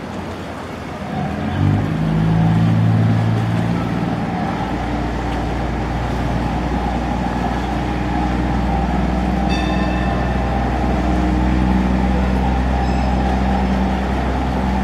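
Ferry's engine speeding up and pulling away under power. Its note steps up and gets louder about two seconds in, then a steady deep rumble settles in for the rest, with the propeller churning the water.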